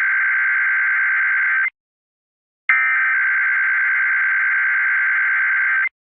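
Emergency Alert System SAME header data bursts: a harsh, buzzy digital warble repeating in blocks of about three seconds with a one-second silent gap between them. One burst ends a couple of seconds in, and the next runs almost to the end. This is the coded header that opens an EAS alert, sent three times over.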